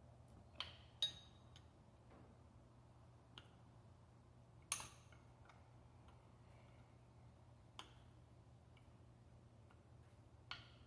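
Faint, scattered metallic clicks and clinks of a wrench and socket working on the injection pump's mounting studs. There are about seven sharp ticks, the loudest about a second in and near the middle, with near silence between them.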